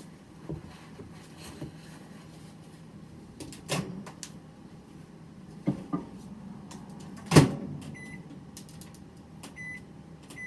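Kitchen handling knocks and a sharp clack about seven seconds in, such as a microwave door shutting, followed by several short high beeps at uneven intervals, as when microwave keypad buttons are pressed.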